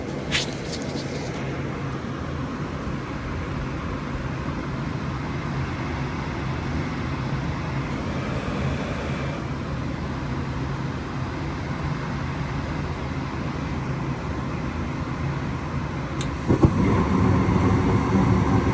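Goodman gas furnace running: a steady mechanical hum and rush of its motors, with a short click a moment in. Near the end the sound grows louder and brighter.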